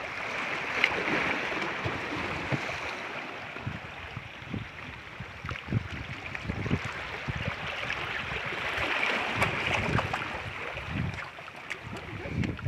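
Shallow stream water rushing and splashing over and between rocks, a steady noisy flow, with scattered low thumps throughout.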